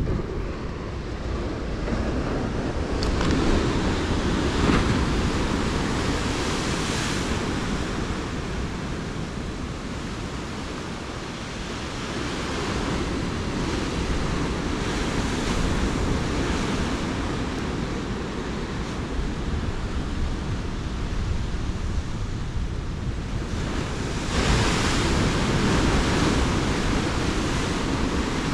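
Ocean surf breaking on a rocky coast, a steady rushing that swells twice, with wind buffeting the microphone.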